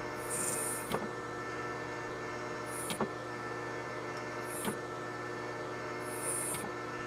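Metal lathe running steadily while a long, small drill bit in the tailstock chuck is pecked into the spinning part. A short high hiss comes each time the bit cuts, about every two seconds, with a few light clicks between.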